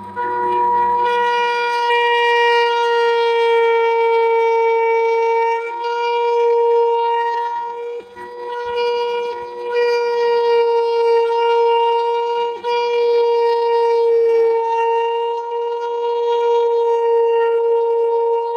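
Harden rotary tool (mini grinder) running at high speed, a loud steady whine with overtones, as its diamond carving bit cuts into a pine block. The whine wavers and dips briefly a few times as the bit bites into the wood.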